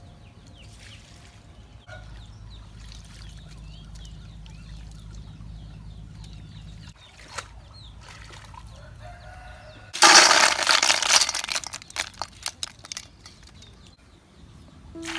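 Water splashing and streaming from a lifted basket of washed greens into a steel bowl: a loud burst about two-thirds of the way through that breaks into drips and trickles. Before it, a low steady rumble with faint chicken calls.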